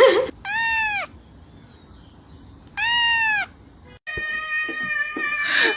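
Cat meowing: two short meows that rise and fall in pitch, then a longer, steadier drawn-out cry starting about four seconds in.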